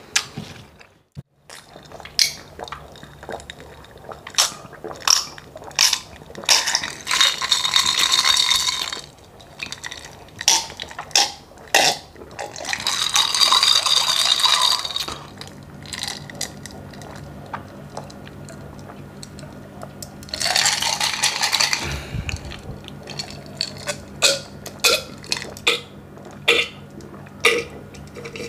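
Close-miked eating and drinking sounds: frequent lip smacks and mouth clicks, broken by three longer noisy stretches of a second or two each.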